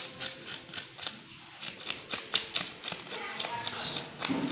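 Knife scraping scales off a whole fish on a wooden chopping block: quick repeated strokes, each a sharp scratchy click, with a short pause about a second and a half in.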